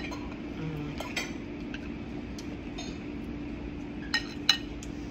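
Cutlery clinking against plates and dishes in scattered light clicks, the sharpest pair about four seconds in, over a steady low hum.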